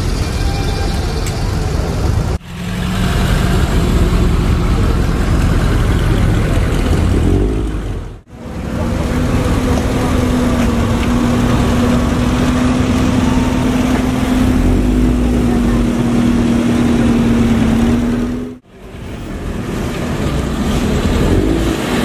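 Classic car engines running as cars drive by in a convoy, with a steady engine drone through the middle stretch. The sound drops out abruptly three times, at about 2, 8 and 18 seconds in.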